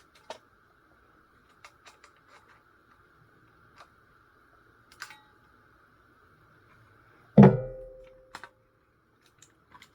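Small metallic clicks and scrapes of a tool working a copper bar loose inside a radio's metal chassis. About seven seconds in comes one loud metallic twang that rings and dies away over about a second.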